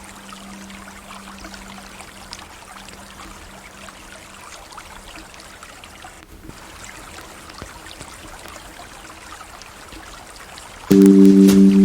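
River water flowing as a steady, even rush. A low held music tone fades out over the first few seconds, and ambient music with several sustained notes comes in loudly near the end.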